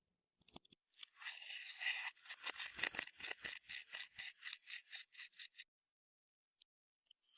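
Clear slime being squished and kneaded by hand, giving sticky crackling pops at about five a second that thin out and stop after a few seconds. A few small clicks follow near the end.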